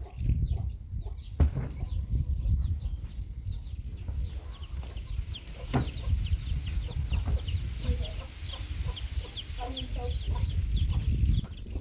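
Chickens clucking, with rapid high-pitched peeping chirps several times a second from about the middle on, over a steady low rumble. Two sharp knocks stand out, one about a second and a half in and one near the middle.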